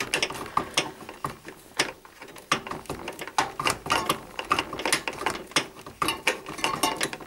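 Screwdriver tightening the mounting screws of a CPU cooler bracket, a run of irregular metal clicks and scrapes.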